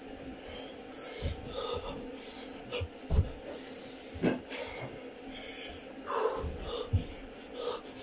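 A man breathing hard and fast through repeated burpees, one loud breath every second or two. Dull thuds come in between as his hands and feet land on the carpeted floor.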